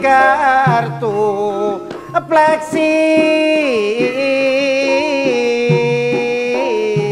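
A man singing a slow Javanese-style melody with long, wavering held notes, over gamelan and keyboard accompaniment.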